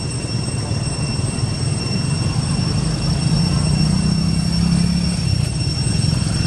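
Low, steady engine rumble of a distant motor, swelling a little with a hum in the middle, with thin steady high-pitched tones above it.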